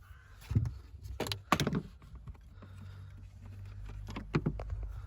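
A few sharp knocks and clicks of parts being handled while the car battery's cables and fittings are taken out, over a low steady hum that builds from about halfway through.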